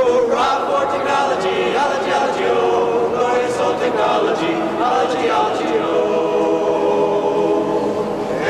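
Male a cappella vocal group singing together, several voices in harmony with no instruments, holding longer notes in the second half.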